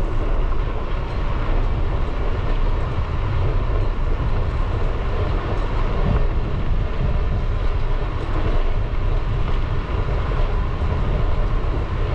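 Steady wind rush and low rumble on the microphone of a camera riding along on a moving bicycle.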